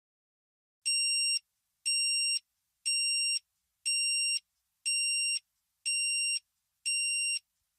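Electronic timer alarm beeping once a second: seven identical high-pitched beeps, each a little over half a second long, starting just under a second in after silence. It signals that the four-minute countdown has run out.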